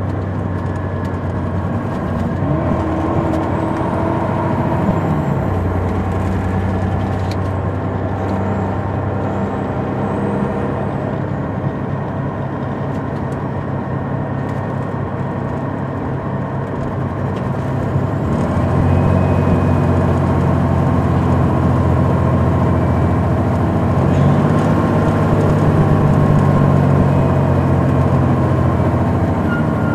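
The Detroit Diesel Series 60 engine of an MCI D4000 coach, heard from on board as the bus drives. The engine note shifts in pitch and grows louder about two-thirds of the way through.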